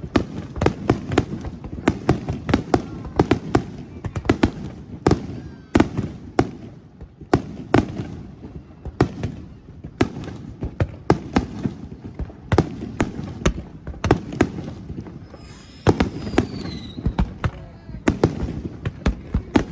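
Aerial fireworks finale: a rapid, dense barrage of shell bursts and bangs, with a brief lull about three quarters of the way through in which a whistling shell rises, before the barrage resumes.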